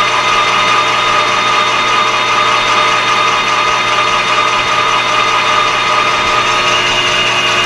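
Metal lathe running steadily with a constant whine, its tool taking a light facing cut across a metal plate to clean up the face.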